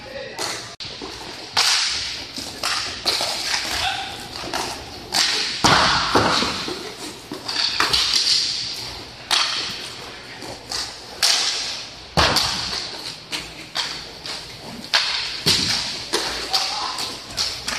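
Inline hockey stick and puck impacts: a string of sharp cracks and thuds, about one every second or two, each trailing off in the hall.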